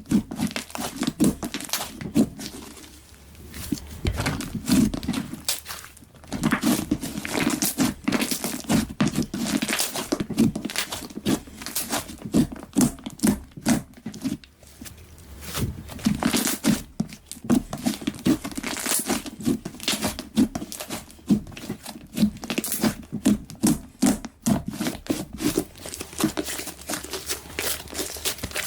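Slime being squished and kneaded by hand, giving rapid sticky crackling and popping clicks as air pockets burst, in bursts with brief pauses.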